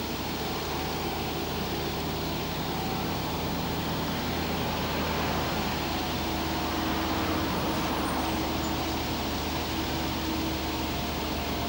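Car driving steadily at speed, heard from inside the cabin: a constant engine hum under road and wind noise.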